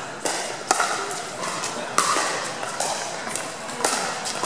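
Pickleball rally: hard paddles striking a plastic pickleball back and forth, a series of sharp pops about half a second to a second and a half apart.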